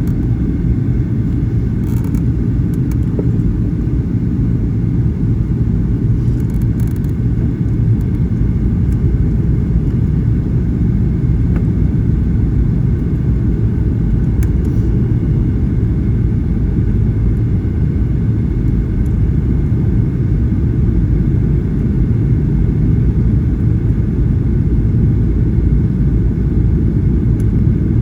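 Steady low rumble of a Boeing 737-800 jet airliner in flight, engine and airflow noise heard from inside the cabin, holding an even level without rising or falling.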